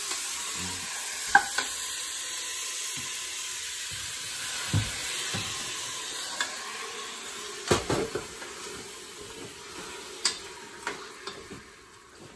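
Beef and garlic sizzling in oil in an aluminium pressure-cooker pot while a wooden spoon stirs them, knocking against the pot several times. The sizzle fades toward the end.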